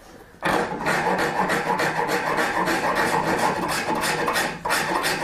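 Hand rasp scraping back and forth over a horn tip glued to a yew bow limb, rough-shaping the horn nock. Continuous strokes, starting about half a second in.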